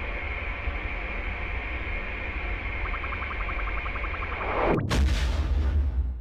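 Sci-fi starfighter sound effect: a steady engine hum with a deep rumble, a quick run of cockpit beeps about three seconds in, then a rising whoosh into a loud rushing fly-by near the end.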